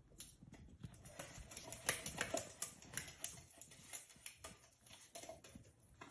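Pomsky puppy lapping and splashing at the water in its bowl: a quick, irregular run of small wet clicks and laps, loudest about two seconds in.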